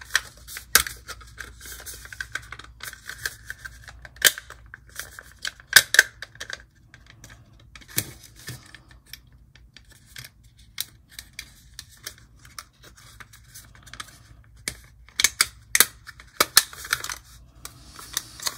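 Plastic HO-scale model diesel locomotive (Lima DB V 221) being handled and set onto sectional track: irregular sharp clicks and taps of plastic and metal parts, with faint rubbing between them.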